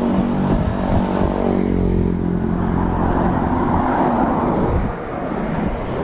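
A motorcycle passing close by, its engine note falling as it goes past, followed by a steady rushing noise.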